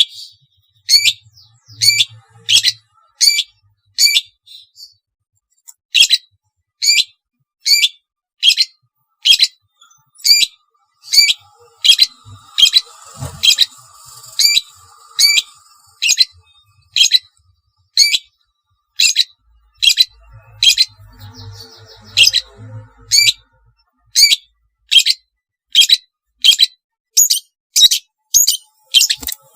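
Long-tailed shrike (cendet) giving a long series of short, sharp, harsh calls, a little more than one a second, with one pause of about two seconds near the start. Faint softer twittering lies underneath in places.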